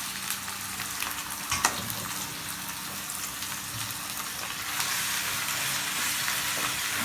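Chicken pieces sizzling as they fry in hot oil on the pan with sautéed garlic, a steady sizzle, with a sharp knock about a second and a half in.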